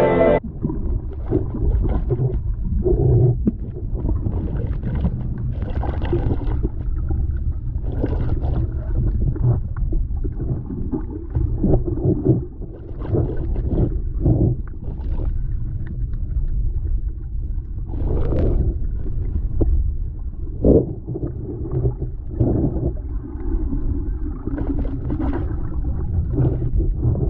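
Underwater sound of moving water: a low, muffled rumble with irregular bubbling and sloshing surges.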